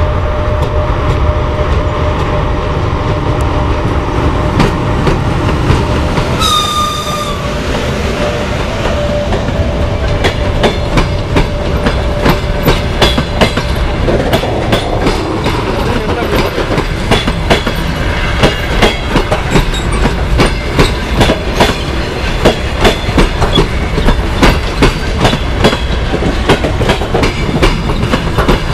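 EP1M electric locomotive hauling a passenger train close by, with a low rumble and a steady whine, and a short high-pitched whistle about six seconds in. Then the passenger coaches roll past, their wheels clicking over the rail joints ever faster as the departing train gathers speed.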